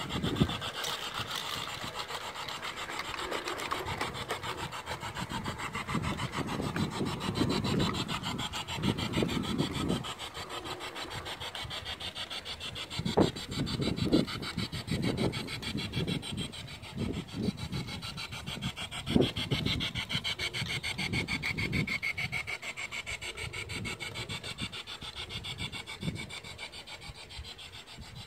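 LGB G-gauge model train running on garden track: a steady, fine rasping clatter of wheels and motor gearing. A few louder low thumps come through in the middle.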